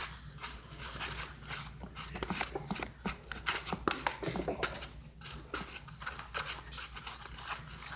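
A spoon stirring glue and baking soda on a plate: irregular clicks and scrapes of the spoon against the plate.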